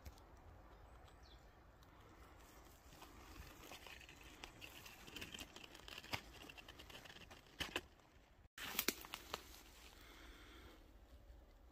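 Footsteps through dry grass and undergrowth: faint crackling and rustling, with twigs snapping underfoot. It gets busier toward the middle, with the sharpest snaps a little before and after a brief dropout in the sound about eight and a half seconds in.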